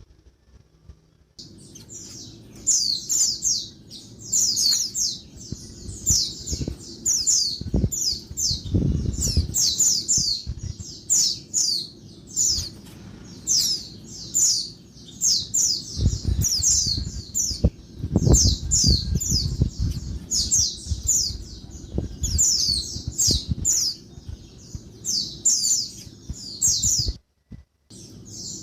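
Female white-eye (pleci) calling noisily: rapid clusters of high chattering chirps, one cluster every second or so, starting about a second in. The calls break off briefly near the end. A low rumble sits underneath at times.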